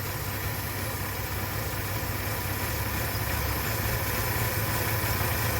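2013 Chevrolet Silverado's 4.3-litre V6 idling steadily while injector 3's control wire is shorted out to force a misfire on that cylinder.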